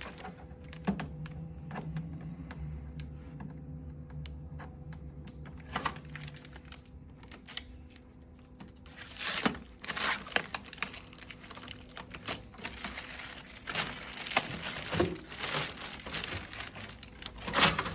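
Blue transport tape being peeled off the plastic body of an Epson A4 printer, with irregular crinkling, short tearing scrapes and plastic clicks as the tape and the printer's parts are handled. It gets busier and louder about halfway through.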